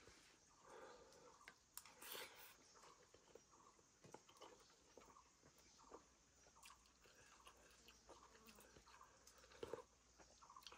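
Faint chewing, with scattered small crunches and clicks of food being bitten and chewed, such as crunchy pork cracklings eaten with rice.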